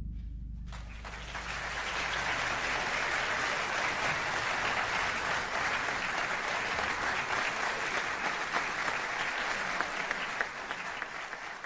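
Audience applauding a school wind band's performance. The clapping starts about a second in, as the band's last low chord dies away, holds steady, and begins to thin out near the end.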